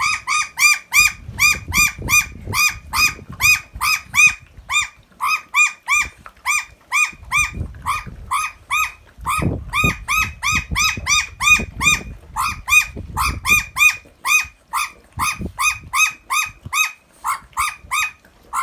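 Australian magpie calling over and over in short squawks on one steady pitch, about three a second without a break. Underneath, in stretches, come the low noises of dogs eating from a pan.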